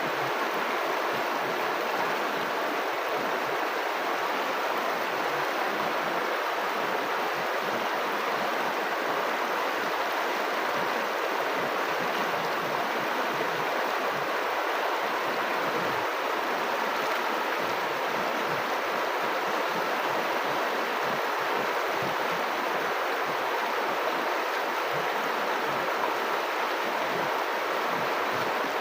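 River water flowing, a steady rushing and babbling of current.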